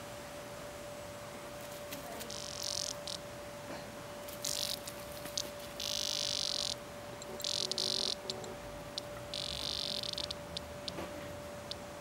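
A cicada buzzing in five short, harsh bursts, each under a second long, separated by pauses. These are the distress buzzes of a cicada being pawed by a cat.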